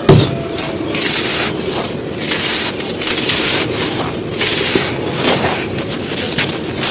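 Dry molded black sand shapes being crushed and crumbled, a run of crisp, gritty crunches about one to two a second, with a low thump right at the start.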